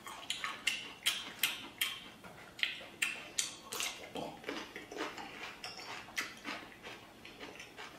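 Close-miked mouth sounds of a man chewing braised pork intestines with rice: wet smacking and squelching, about two or three smacks a second.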